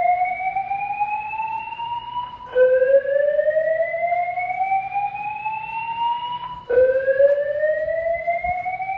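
Fire alarm voice-evacuation speaker sounding a whoop evacuation tone: a steady rising sweep that climbs for about four seconds, then drops back and climbs again, restarting twice. It signals an active alarm calling for evacuation, here during an alarm system test.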